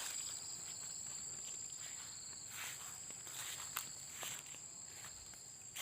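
Insects droning steadily in a continuous high pitch, with a few faint footsteps or rustles in the undergrowth.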